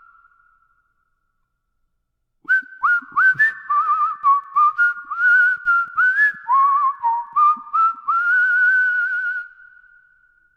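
Whistling: after a silent opening, a quick run of short warbling notes that slide up into pitch, with clicks between them, ending in one long trilled note that fades out.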